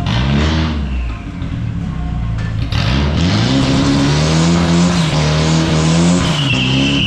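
Mitsubishi Mighty Max pickup's engine revving hard, rising and falling several times, with a tire squeal starting near the end as the rear wheels spin in a burnout.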